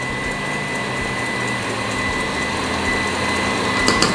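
KitchenAid Artisan stand mixer running steadily, its beater whipping eggs, sugar and vanilla for a cake batter until the mixture rises. There are a few light clicks near the end.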